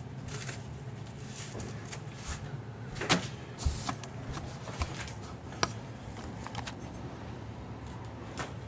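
A few light knocks and clicks of handling, the loudest about three seconds in, over a steady low hum.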